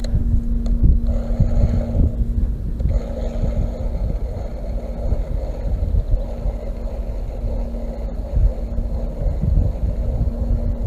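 Wind buffeting the microphone of a head-mounted camera in gusts, with a faint steady hum underneath.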